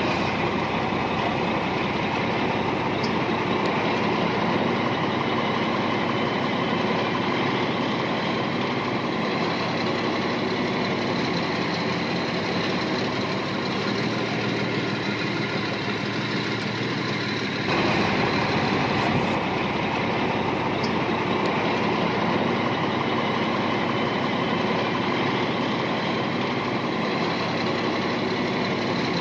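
Heavy diesel engine of earthmoving machinery running steadily, with an abrupt change in its sound after about 18 seconds.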